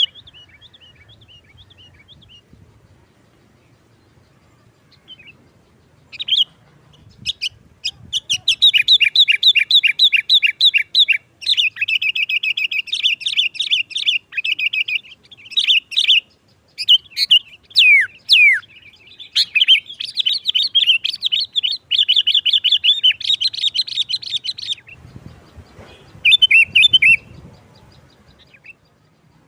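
Sooty-headed bulbul (kutilang) song in long, fast chattering runs of rapid repeated notes with a few sliding notes mixed in. It begins sparse and faint, turns loud and continuous about six seconds in, and breaks off near the end after one short final burst.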